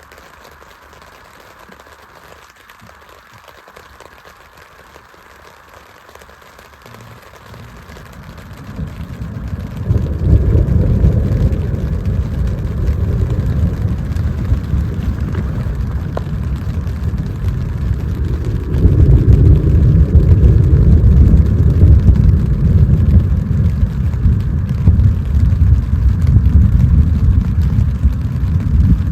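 Thunderstorm: a faint steady hiss of rain, then a deep rumble that builds about nine seconds in and grows louder again near nineteen seconds.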